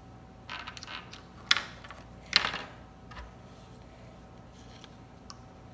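Small plastic toy pieces clicking and knocking as they are handled on a table, with two sharp clicks about one and a half and two and a half seconds in and a few lighter taps around them.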